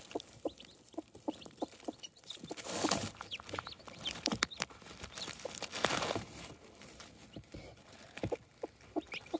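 Broody hen clucking softly in short calls while being stroked, with a couple of brief rustles of feathers and straw about three and six seconds in.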